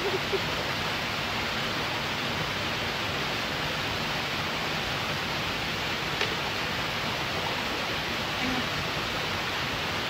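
Waterfall: water pouring over rocks in a steady, even rush.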